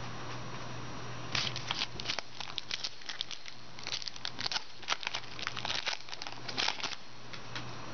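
Trading-card pack wrapper crinkling and tearing as it is opened by hand. The crackles start about a second and a half in and go on for about five seconds, over a steady low hum.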